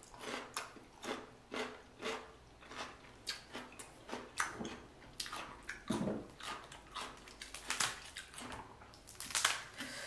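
Close-miked chewing of sauce-coated seafood from a seafood boil: short, wet mouth sounds and bites, about two a second.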